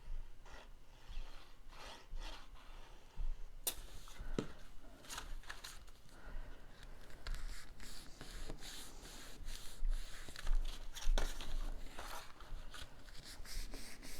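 Cardstock being handled, folded and pressed together: scattered rustling, rubbing and small clicks, busier from about four seconds in.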